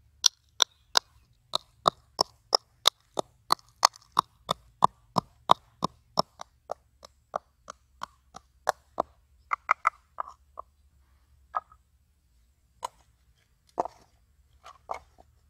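A stick pestle pounding in a coconut-shell bowl: steady sharp knocks, about three a second, that slow and fade after about nine seconds. A few scattered knocks and clatters follow near the end.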